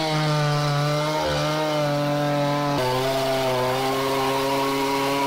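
Two-stroke chainsaw cutting through a felled pine log, the engine running steadily under load; its pitch steps down slightly about three seconds in.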